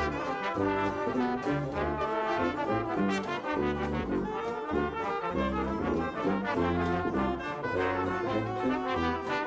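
Background music led by brass instruments, with a bass line that steps from note to note about twice a second.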